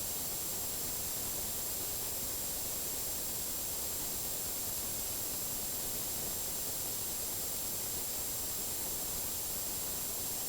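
Steady hiss like static, brightest in the high frequencies, with a thin, steady high-pitched whine.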